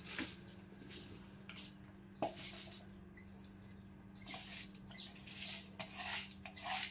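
Soaked, drained glutinous rice being scooped into a steamer pot: a run of short rustling swishes, with one sharp knock about two seconds in and a quieter spell around the middle. A steady low hum runs underneath.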